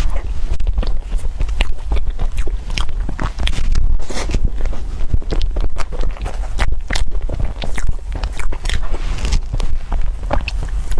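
Irregular crunching and crackling close to the microphone, over a steady low rumble.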